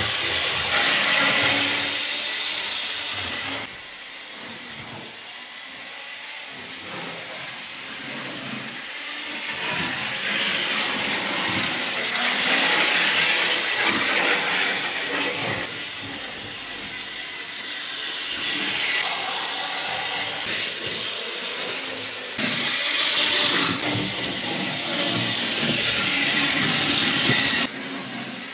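Model Cardiff Corporation Transport double-deck tram running on the layout's track: a rushing whir of its small electric motor and wheels that swells and fades several times as it passes close by, with a few abrupt jumps in level.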